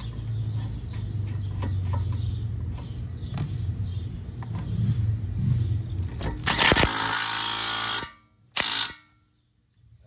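Cordless DeWalt 20V impact wrench hammering the front axle nut tight: one burst of about a second and a half, then a short second burst.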